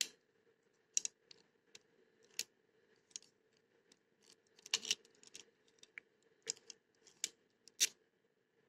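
Small metal clicks and scrapes, irregular and spaced about a second apart with a short cluster near the middle: steel jiggler keys worked in a simple single-sided wafer lock.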